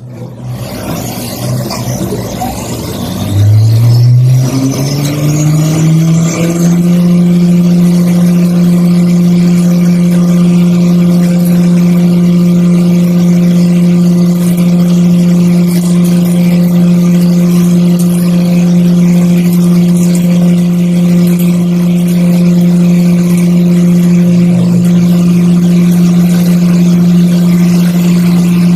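CNC milling machine spindle spinning up, its whine rising in pitch for about three seconds shortly after the start, then running at a steady, loud pitch.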